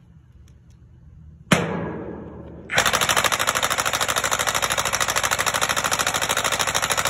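Large cordless D-handle impact tool driving a steel helical pile into gravel ground: it starts suddenly about a second and a half in, then about three seconds in breaks into a fast, even hammering rattle of blows as the pile takes up load.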